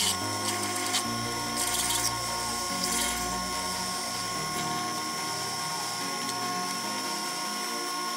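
Sherline lathe running at steady speed with a high, even motor whine while a twist drill in the tailstock chuck bores into brass, with short scraping bursts of cutting at the start, about a second in, and around two and three seconds in.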